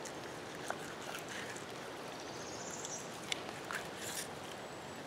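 Steady outdoor background hiss with a few faint ticks as a fillet knife works the skin off a smallmouth bass fillet on a flat rock. A faint rising bird whistle comes about halfway through.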